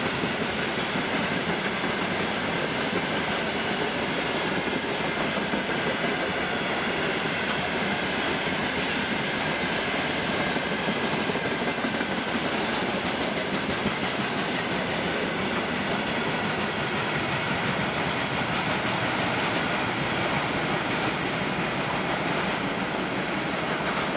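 Freight train of covered hopper wagons rolling past: a steady rumble and clatter of wheels on the rails, with a faint steady ringing tone. The highest hiss thins out near the end as the train draws away.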